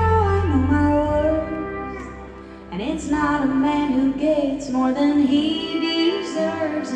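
Live performance of a song: a woman singing with a band. About a second in the bass and drums drop away, leaving the voice over lighter accompaniment.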